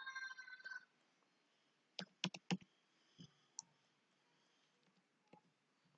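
Computer clicks while working in CAM software: a quick run of four sharp clicks about two seconds in, then a few fainter single clicks spaced out. The rest is quiet room tone.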